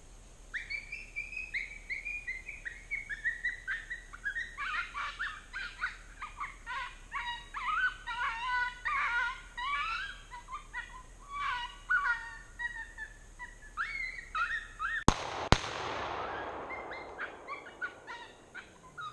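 Coyote-style yipping and wavering howls, many quick rising and falling calls in a rapid chorus, typical of a coyote pup-distress call. About fifteen seconds in, two shotgun shots about half a second apart ring out and fade slowly.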